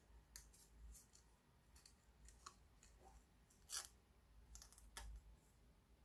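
Faint, sparse clicks and light taps as a tea bag is handled and set into a glass teacup on its saucer. The loudest tap comes a little under four seconds in, with another at about five seconds.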